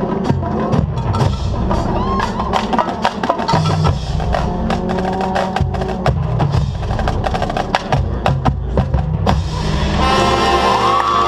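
Marching band playing: a drumline drives with many sharp stick clicks and rim hits over bass drums, under a moving melody, and about ten seconds in the horns come in with a loud held chord.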